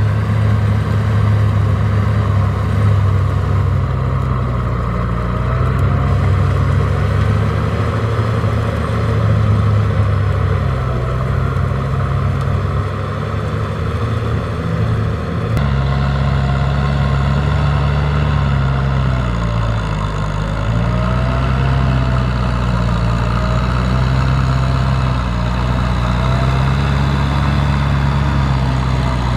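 Kubota M6040SU tractor's diesel engine running steadily under load as it pulls a rotary tiller through wet paddy mud. The engine pitch wavers up and down a little, and the sound shifts abruptly about halfway through.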